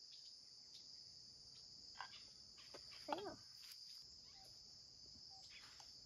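Steady high-pitched drone of an insect chorus, with a short faint voice-like sound about three seconds in.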